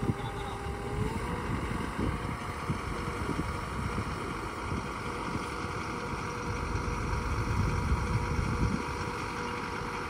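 Truck-mounted borewell drilling rig running steadily, its engine and machinery giving a continuous mechanical drone with some irregular low knocking. A tone rises briefly about a second in.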